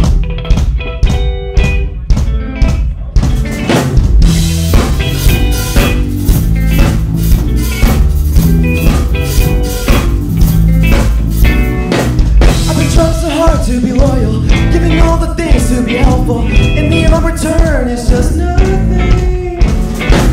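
Live rock band playing an instrumental intro on electric guitars, bass and drum kit. The full band comes in at the start, with cymbals joining about three seconds in and a bending melody line entering about twelve seconds in.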